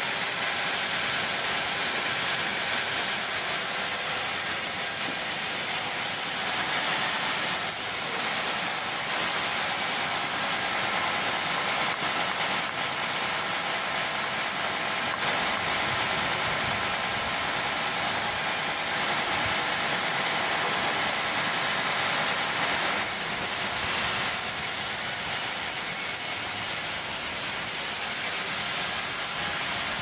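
Large band sawmill running, its blade sawing through a big teak log with a steady, high, hiss-like noise.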